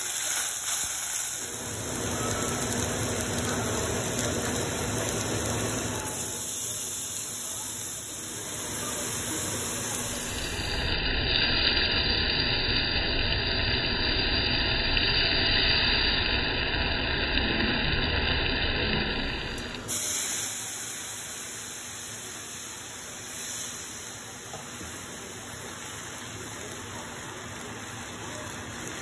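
Steady sizzling hiss of food cooking in hot oil in a pot: searing beech and trumpet mushrooms, then Arborio rice toasting with onion and celery. Louder through the middle stretch.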